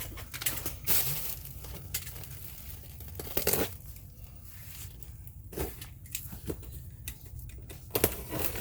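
Packing material rustling and crinkling as a shipping box is unpacked by hand, with a few louder handling knocks, about a second in, midway and near the end.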